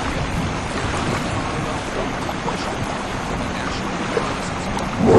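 Delta IV Heavy rocket engines at liftoff: a steady rushing noise. Right at the end it suddenly swells much louder into a deep rumble.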